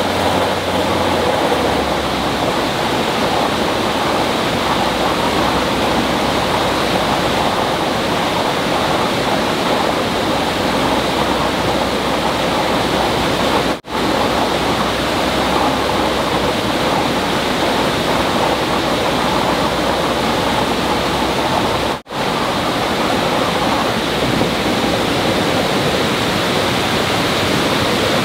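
Rushing water, a steady loud rush like a stream or small waterfall, cutting out for an instant twice.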